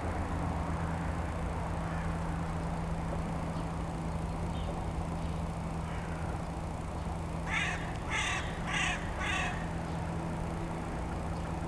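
A crow cawing four times in quick succession a little past the middle, over a steady low hum.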